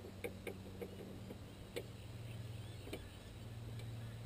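Scattered light clicks and taps from a line being hauled up by hand over a small aluminium boat, with a low steady hum underneath.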